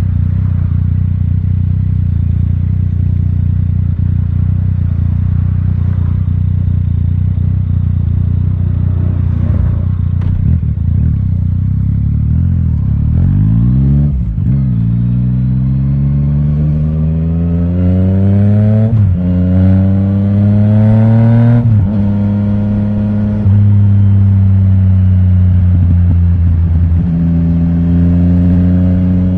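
Yamaha Tracer 900 GT's inline-three engine through an Akrapovic titanium full exhaust system with the dB killer removed, heard onboard while riding. A steady drone gives way, about halfway through, to hard acceleration: the pitch climbs and drops back sharply at three upshifts before settling into a steady cruising note.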